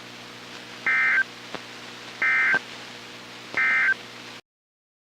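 Emergency Alert System End-of-Message data tones: three short bursts of two-tone digital warble, about a second and a half apart, over a humming, hissing radio channel that cuts off abruptly after the third burst. They mark the end of the broadcast warning.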